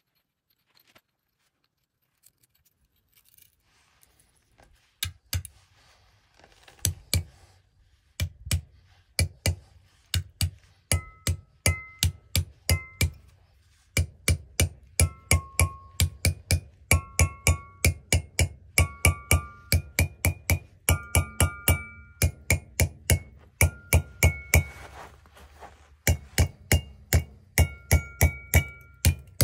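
Hand sledge striking steel plug-and-feather wedges set in a row of drilled holes in a granite block, driving them in turn to split the rock. Sharp metallic taps start about five seconds in, settling to about two a second, each ringing with a bright tone that changes from wedge to wedge, with a short pause near the end.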